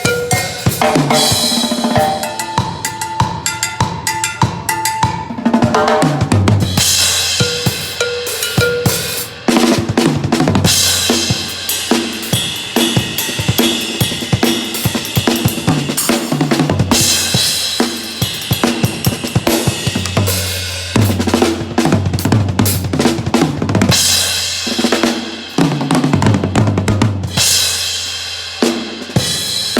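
A drum kit played in steady grooves during a sound check, with bass drum, snare and rimshots, and cymbal crashes coming in several times.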